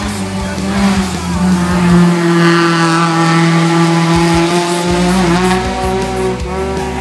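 Hatchback's engine held at high revs as it climbs through a hairpin bend; the note stays high with small shifts in pitch and drops about five seconds in.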